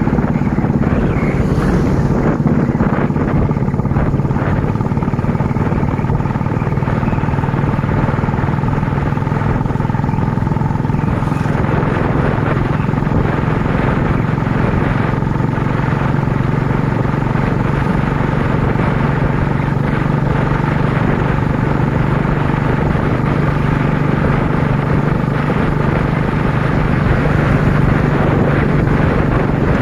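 Royal Enfield Classic's single-cylinder engine running at a steady cruise as the motorcycle is ridden, heard from the rider's seat, with a steady engine note and no marked revving.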